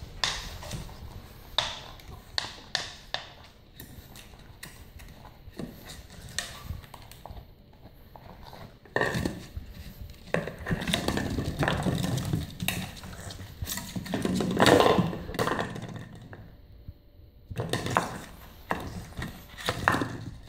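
French bulldog puppy playing with a plastic water bottle on a hardwood floor. Sharp knocks and taps of the bottle against the floor come first. About halfway in there is a long stretch of crackling and crunching as the puppy bites and crushes the bottle.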